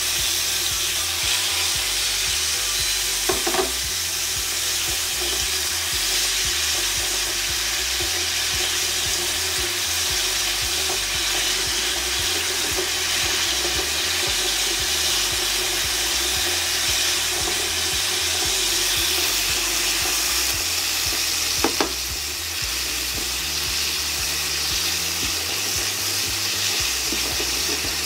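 Shrimp sautéing in hot oil, sizzling steadily, with a couple of brief clicks about three seconds in and again near twenty-two seconds.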